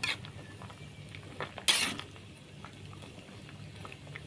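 A short metallic clatter of cookware about one and a half seconds in, with a few light clinks, over the low steady sound of pots boiling.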